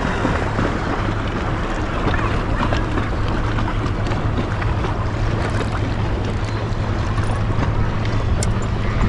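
Minn Kota saltwater electric trolling motor on a belly boat running with a steady low hum, over a constant rush of water and wind on the microphone.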